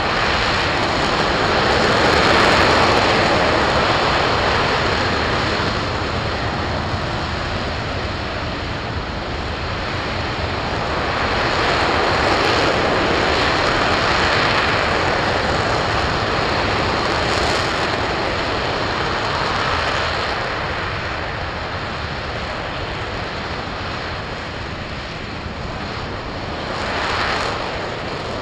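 RS-25 liquid-hydrogen/liquid-oxygen rocket engine running at steady thrust during a long-duration hot-fire test: a continuous dense rushing roar that swells and eases in slow waves every several seconds.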